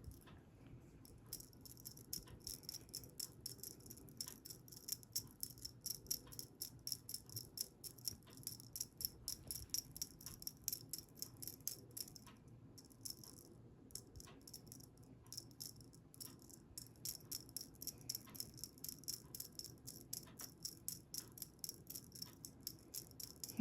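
A small cat toy rattling as it is shaken and flicked in quick, uneven strokes, several a second, with a short lull about halfway.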